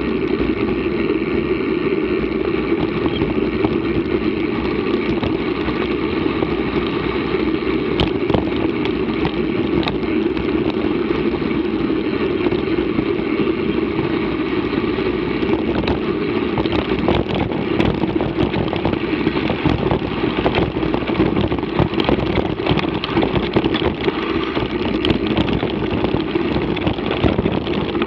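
Mountain bike rolling over a dirt track: a steady rumble of tyres on dirt and wind on the microphone, with scattered knocks from bumps, more of them in the second half.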